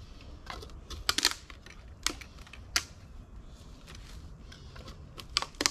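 Plastic lids being pressed and snapped onto one-gallon plastic feed buckets: about six sharp clicks, in a pair about a second in, two more singly, and another pair near the end.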